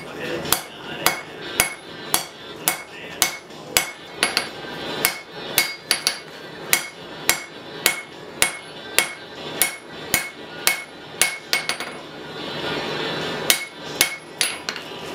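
Hand hammer striking hot steel on an anvil, about two blows a second, each with a short metallic ring. There is a pause of a second or so near the end, then the blows resume.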